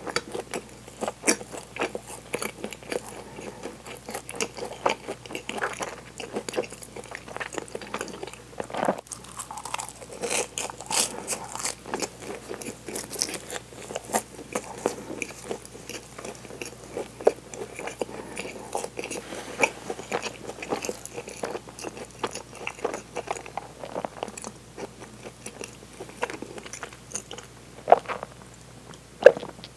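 Close-miked chewing of flaky chocolate-filled bread, with soft crunching of the crust and wet mouth sounds. Near the end come two louder gulps as milk is drunk from a glass.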